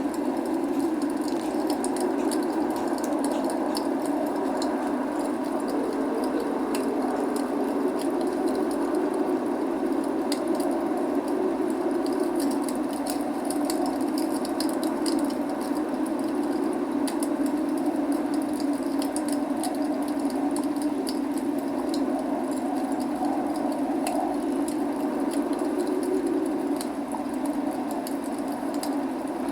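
Burning log fire crackling, with many small irregular pops over a steady rushing noise of rain and flames.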